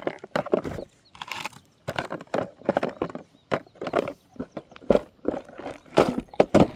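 Rummaging through a tackle box: irregular clattering and clicking of lures and tackle being moved about.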